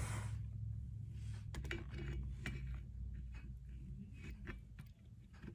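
Scattered light clicks and taps from the black tubes and plastic clamps of a stroller frame being handled during assembly, over a low hum that fades out after a few seconds.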